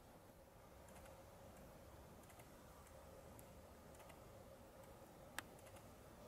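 Near silence: faint background hiss with a low steady hum, a few faint ticks, and one sharp click about five seconds in.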